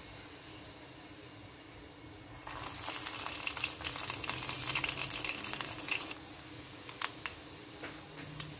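Sesame-coated dough balls deep-frying in a pot of oil. About two and a half seconds in, a fresh ball goes into the oil and it breaks into loud sizzling for a few seconds, then settles to scattered pops and crackles.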